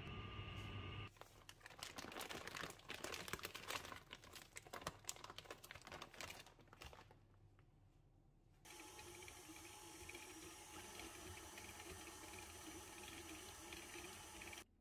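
A bag being handled, crinkling and rustling with many small irregular clicks for several seconds. Then, a little past the middle, a stand mixer starts up and runs steadily, its flat beater creaming butter and sugar in a steel bowl, until it cuts off just before the end. All of it is quiet.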